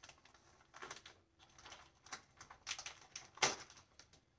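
Small packet of hinge parts being handled and opened by hand: faint, scattered rustling and crinkling, loudest about three and a half seconds in.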